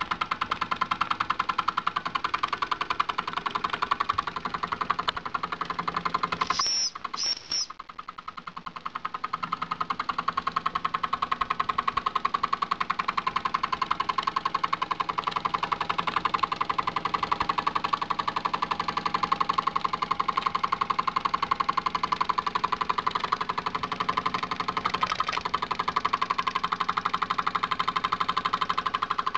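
Wilesco D6 model steam engine running under steam: its oscillating cylinder makes a fast, steady chuffing as the flywheel spins. About seven seconds in it briefly falters, with two short high squeaks, then picks up its steady beat again.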